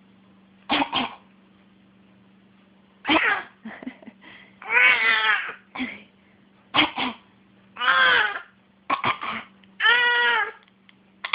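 Baby giving a string of short coughs, used as a way of communicating, traded with three drawn-out pitched vocal sounds.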